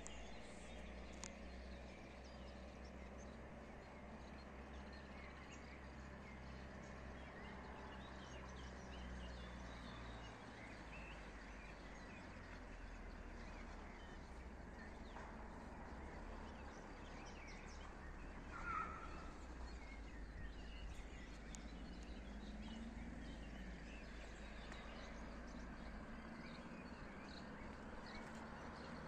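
Faint outdoor ambience: scattered birdsong over a steady low rumble, with one louder bird call about nineteen seconds in.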